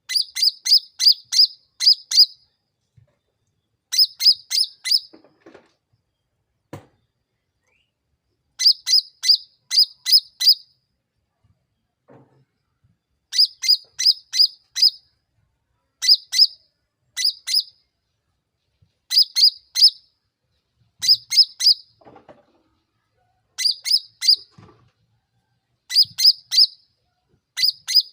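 Cucak ranting singing its lure song: short phrases of five or six rapid, sharp, high chirps, repeated about every two and a half seconds with brief pauses between them.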